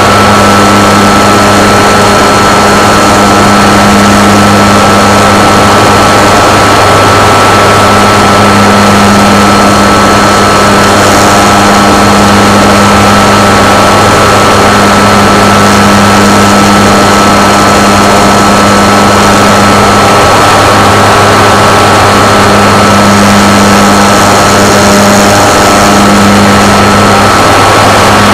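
Model aircraft's motor and propeller running steadily at constant throttle, picked up very close by the onboard camera: a loud drone with a thin high whine over it.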